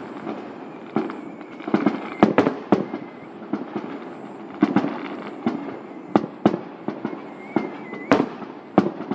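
Aerial firework shells bursting: an irregular run of sharp bangs, about fifteen in nine seconds, some coming in quick pairs, each trailing off in a short rumbling echo.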